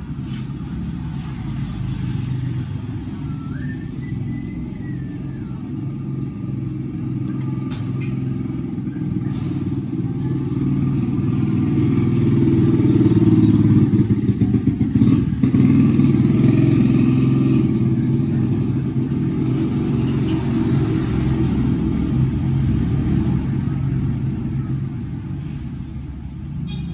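Steady low mechanical rumble of a running machine, growing louder around the middle, with a few faint clicks.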